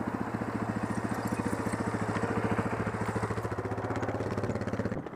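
Quad (ATV) engine running steadily at idle with a rapid, even pulse, cutting off abruptly near the end.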